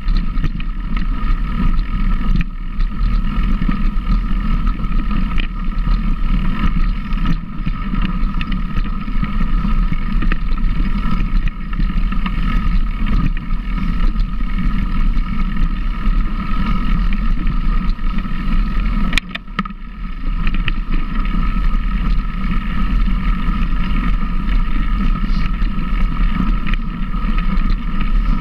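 A vehicle running steadily, a constant loud drone that dips briefly about two-thirds of the way through.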